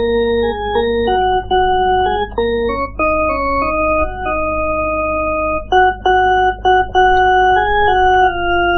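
Instrumental music on an electronic organ-style keyboard: a melody of held notes and chords that change every half second to a second or so, over a steady low hum.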